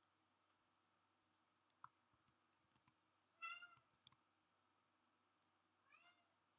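Two faint animal calls, a short arched cry about three and a half seconds in and a shorter rising one near the end, with a few soft clicks.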